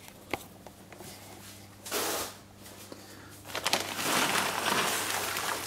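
Plastic parts packaging rustling and crinkling as it is handled: a single click near the start, a short burst of rustling about two seconds in, then a longer stretch of rustling through the second half.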